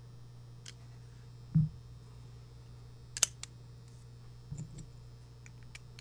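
Small handling sounds of a brass padlock, screwdriver and key: a dull thump a little over a second and a half in, a sharp metallic click about three seconds in, then a few faint clicks, over a low steady hum.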